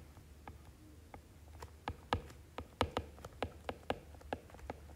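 Stylus tip tapping and clicking on a tablet's glass screen during handwriting: a string of short, sharp, irregular ticks, about three a second.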